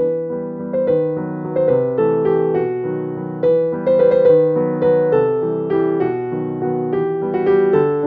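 Background music: a gentle piano piece of single notes over soft chords, a new note every half second or so.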